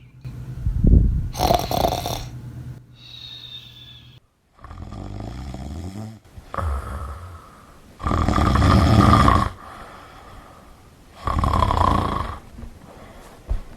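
A sleeping person snoring: about five loud snores, each a second or so long, at irregular spacing with quieter breathing between them. The longest and loudest comes about eight seconds in.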